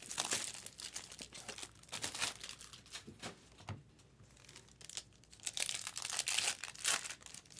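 Foil wrapper of a trading-card pack crinkling as it is handled and torn open, in uneven bursts of crackle, loudest near the start and again near the end.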